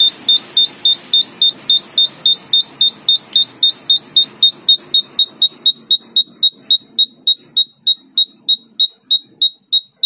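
Intermittent-beep piezo buzzer of a DIY thermistor fire alarm beeping, a high-pitched beep about three times a second. The alarm has been set off by an NTC thermistor heated with a lighter flame.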